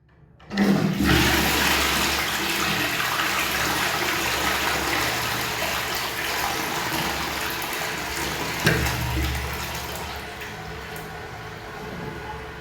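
Toilet flushed with the flush held down long: a sudden rush of water that starts about half a second in and runs on loudly. There is a sharp knock about nine seconds in, and the rush eases off near the end.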